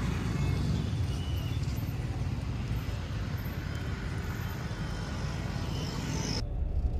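Steady road and traffic noise from a car on the move, a low rumble with hiss above it. Near the end the hiss cuts off abruptly, leaving only the low rumble.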